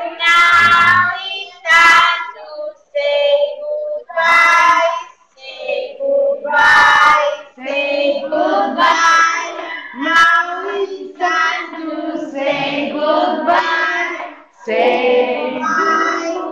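A group of children singing a song together, with a woman's voice singing along, in short phrases with some held notes.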